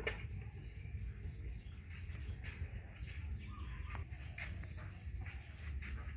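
A bird repeating a short, high chirp about every second and a quarter, over a steady low rumble.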